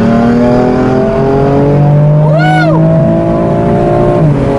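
2018 BMW M4 Competition's twin-turbo straight-six, fitted with a custom titanium exhaust, heard from inside the cabin under hard acceleration: the engine note climbs steadily through a gear, then drops with an upshift near the end. A short voice whoop rises and falls about halfway through.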